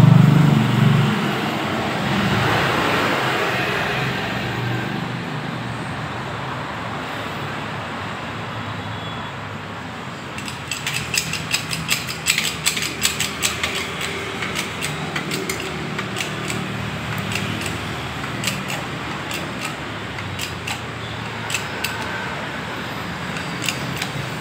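Mechanical clicking in quick irregular runs, starting about ten seconds in, over a low steady hum. A louder low sound dies away in the first two seconds.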